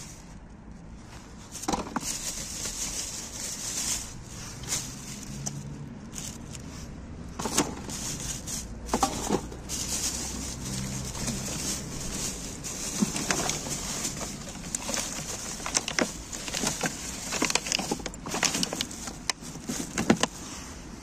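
Plastic bags and paper rustling and crinkling as hands dig through rubbish, with irregular clicks and knocks of items being picked up and set down, busier in the second half.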